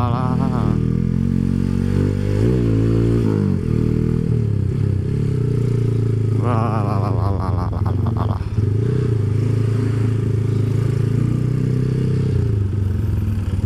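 Motorcycle engine running steadily under way, heard from the rider's seat. Its note drops and climbs again about three seconds in, a shift in revs.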